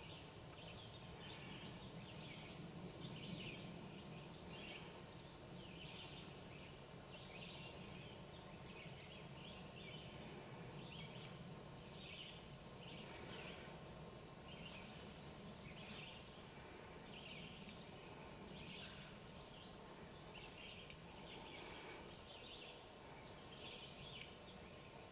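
Faint spring woodland ambience: small birds give many short, high chirps, one or two a second, over a low steady hum.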